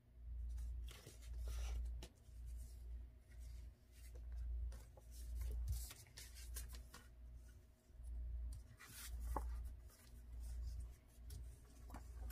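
Photo prints and paper being handled and shuffled on a work table: soft rustling and sliding, with dull low bumps on and off as they are set down.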